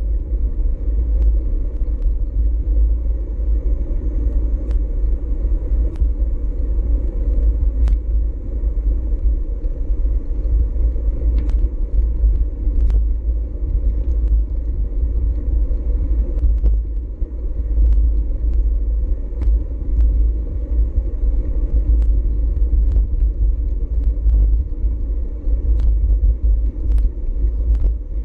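Wind buffeting the microphone of a GoPro Hero4 Session on a moving bicycle: a steady low rumble, with scattered faint clicks.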